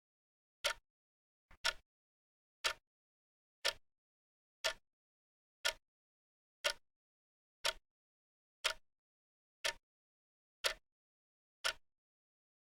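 Clock ticking once a second: sharp, even ticks with dead silence between them. Near two seconds in, a faint extra click comes just before one tick.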